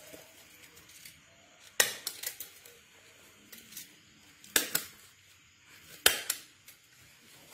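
Handheld stapler snapping shut three times as it staples a diaper, each sharp snap followed by a few lighter clicks.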